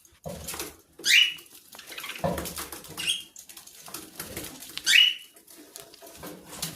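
Pet parrot giving three short, sharp chirps about two seconds apart, over soft clicking and rustling.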